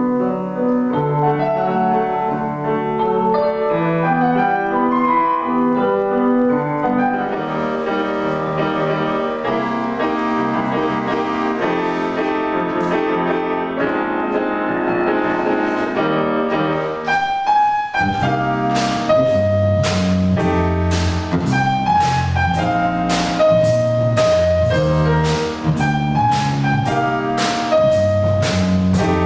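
Jazz piano played live on a grand piano with keyboard accompaniment. About two-thirds of the way through, a drum kit comes in with a steady beat of about two hits a second over a low bass line.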